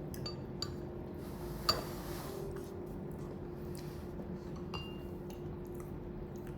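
Several light clinks of tableware, one louder about a second and a half in, over a steady low hum.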